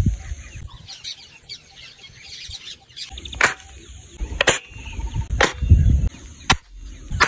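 Air rifle fired several times, each shot a sharp crack, most of them about a second apart in the second half. Birds chirp in the background early on.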